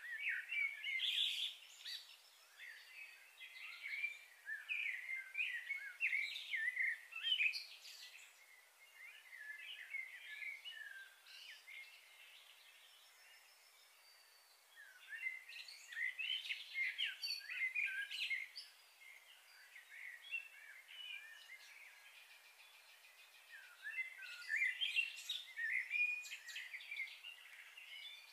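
Small songbirds chirping and twittering in quick, overlapping phrases, in three bouts with quieter gaps between: a long one at the start, a shorter one past the middle and another near the end.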